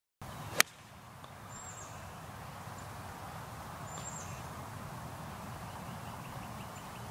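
A golf club strikes a golf ball once, a single sharp crack about half a second in. Then comes steady outdoor background with a few faint, short bird chirps.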